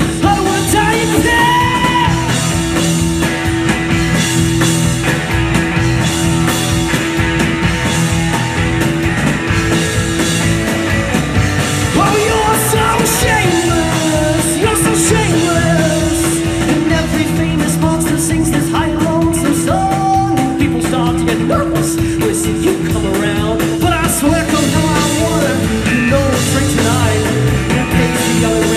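Live rock band playing loud through a PA: electric guitar, electric bass and drum kit, with a male voice singing. A steady held note drones under most of it.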